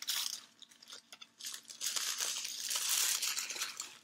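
Thin paper wrapping crinkling and rustling as a mounted art print is slid out of it: a short burst right at the start, then a longer stretch of crinkling from about a second and a half in that fades near the end.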